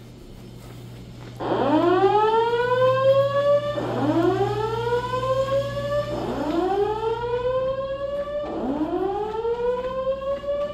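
Simplex voice evacuation system's whoop tone from the ceiling speakers, sounding the fire evacuation signal between voice messages. It starts about a second and a half in: four slow rising sweeps, each about two and a half seconds long, with a steady low hum underneath.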